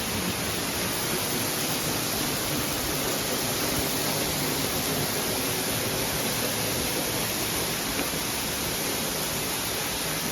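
Waterfall heard from close by: a steady, unbroken rush of falling water.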